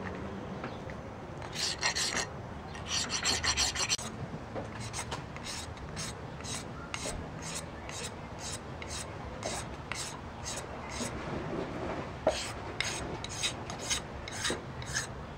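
Flat hand file stroked back and forth across a yellow wonderstone pipe piece, about two to three rasping strokes a second, with a quick flurry of strokes about three seconds in. The filing smooths away the coarse rasp marks.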